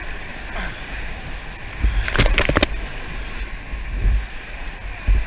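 Whitewater rapids rushing and breaking against an inflatable raft, heard close up through an action camera with rumbling buffeting on the microphone. A brief burst of sharp knocks comes about two seconds in.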